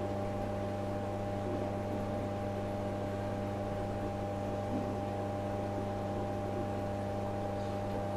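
Steady electric hum with a hiss: an aquarium air pump running, feeding a bubbling sponge filter.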